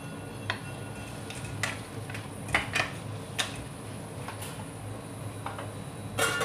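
Wooden spatula knocking and scraping against a steel kadhai as green beans and potato pieces are stirred, a few separate clacks. Just before the end the steel lid clatters back onto the pan, the loudest sound.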